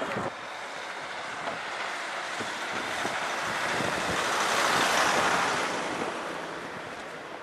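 A car driving past close by: tyre and engine noise swelling to a peak about five seconds in, then fading away.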